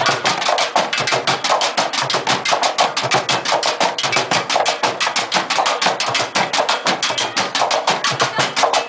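Percussion band drumming on recycled containers, white plastic jugs and blue plastic barrels, played together in a fast, steady, even beat of several strikes a second.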